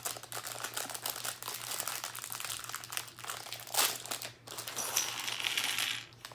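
Small plastic LEGO pieces clicking and clattering against each other while a plastic parts bag crinkles, as pieces are rummaged through by hand; a louder rustle about four seconds in.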